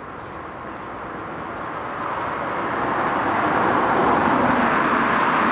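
A road vehicle passing on the street. Its tyre and engine noise swells steadily and is loudest about four seconds in.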